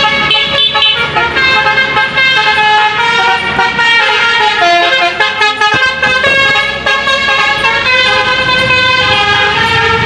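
Multi-tone telolet truck horn playing a tune, its bright horn notes stepping quickly from pitch to pitch.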